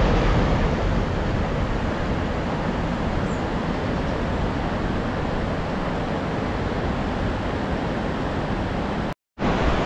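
Steady rushing of the fast-flowing River Dee running white over rocks, with a brief dropout near the end.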